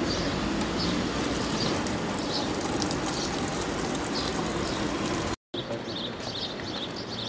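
Outdoor ambience: a steady rush of background noise with small birds chirping over it, the chirps coming faster near the end. The sound drops out for a moment about five and a half seconds in.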